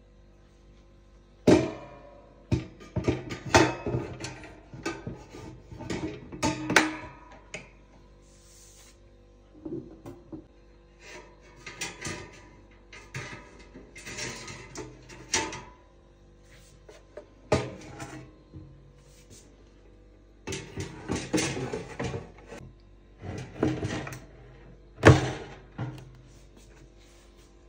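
Handling clatter of an air fryer's plastic basket and stainless wire mesh rack: irregular knocks, clicks and short rattles as the rack is set into the basket and the basket drawer is worked. There is a single sharp knock near the end.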